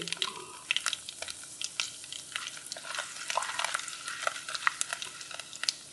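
Dals and chillies frying in hot ghee in a stainless steel kadai, sizzling steadily with scattered sharp crackles, while a silicone spatula stirs them.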